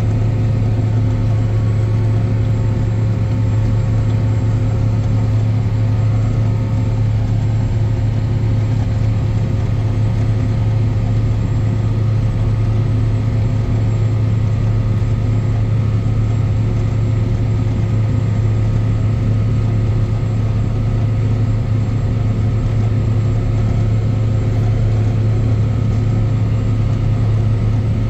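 John Deere 9300 four-wheel-drive tractor's diesel engine running steadily under heavy load, pulling a mulch ripper about 12 inches deep, heard from inside the cab as an even low drone.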